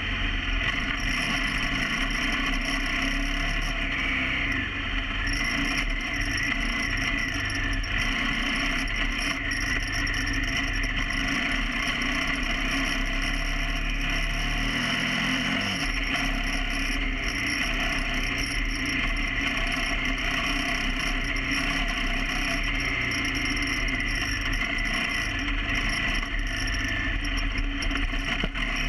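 KTM 990 Adventure R motorcycle being ridden, its V-twin engine and drivetrain running steadily, with mechanical noise throughout.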